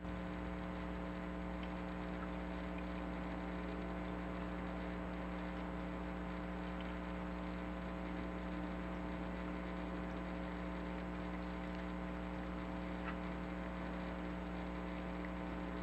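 Steady low electrical hum with a stack of higher overtones, unchanging throughout, with a few faint ticks now and then.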